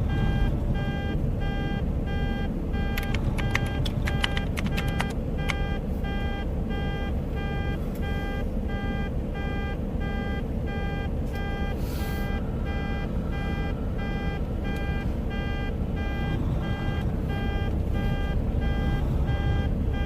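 Truck back-up alarm beeping steadily, about two short beeps a second, over the low rumble of a running diesel truck engine. A run of sharp clicks comes a few seconds in.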